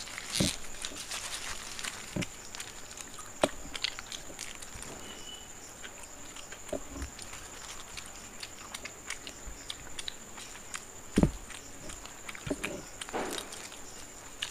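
Two people chewing and eating egg rolls, with scattered small wet mouth clicks and lip-smacking and the rustle of their paper wrappers. One louder knock about eleven seconds in.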